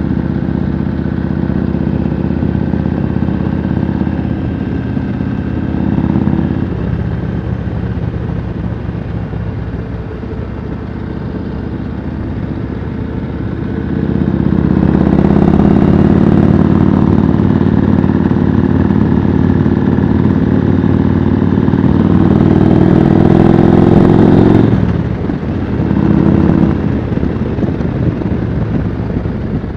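Yamaha Road Star V-twin motorcycle engine running under way. About halfway through it gets louder, with a rushing hiss over it, for around ten seconds, then eases off.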